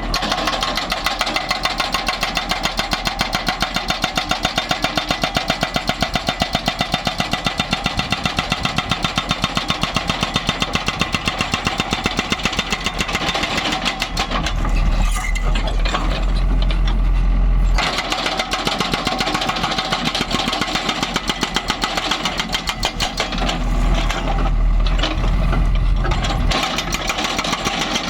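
Hydraulic breaker hammering on concrete in a rapid, even rhythm, breaking up a concrete pipe culvert. The hammering stops about halfway through and again for a moment near the end, and a heavy diesel engine's low rumble takes over.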